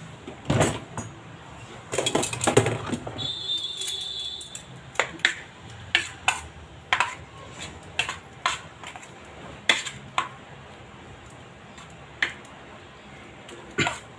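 A utensil clicking and scraping against a plate while battered cauliflower florets are tossed in dry breading mix: a quick cluster of clicks about two seconds in, then single sharp clicks roughly once a second. A short high ringing tone sounds about three seconds in.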